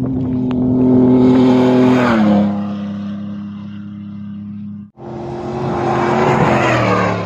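Off-road rally vehicle speeding past at high revs, its engine note dropping in pitch as it goes by. After a sudden cut, a second rally vehicle approaches and passes the same way near the end.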